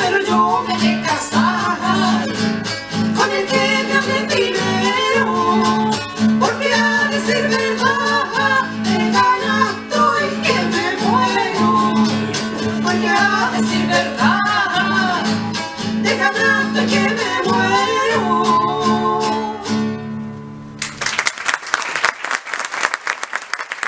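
Women singing a Chilean folk song to two strummed acoustic guitars. The song ends about 21 seconds in, and the audience breaks into applause.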